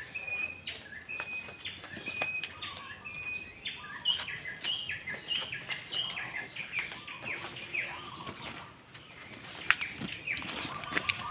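Small birds chirping: a short high note repeated about two times a second, then a busier jumble of chirps from several calls. A few sharp clicks near the end.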